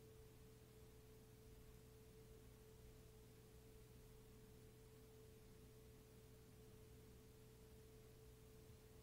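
Near silence: room tone with a faint steady hum and a thin steady tone over it.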